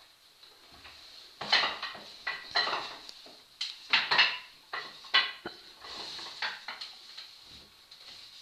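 Wooden rungs of a rope ladder knocking and clattering as a person pulls up it hand over hand: a quick run of sharp, ringing knocks, thickest in the middle few seconds, then softer knocks.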